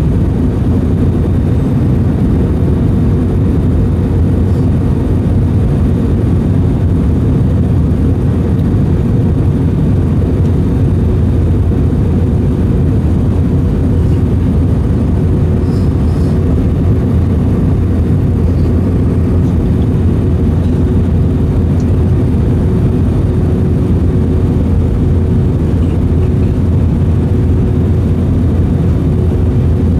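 Airbus A320 in flight, heard inside the cabin: a steady, loud, low roar of airflow and engines, with a faint steady hum within it.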